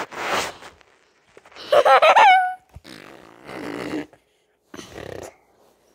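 Children making silly mouth noises: short breathy blowing bursts through pushed-out lips, and a loud wavering squeal of a child's voice about two seconds in.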